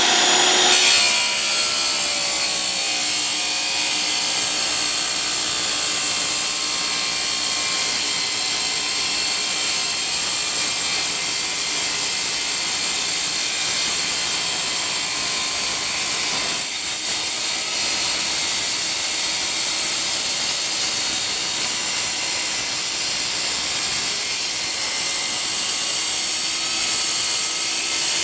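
DeWalt wet tile saw running steadily, its blade cutting a long angled line through a 12x24 porcelain tile.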